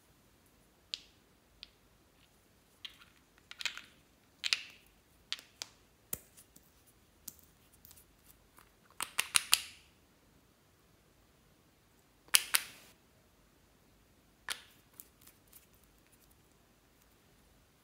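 Clear slime being worked by hand, giving scattered sticky clicks and pops, with a quick run of them about nine seconds in and another short crackly burst around twelve seconds.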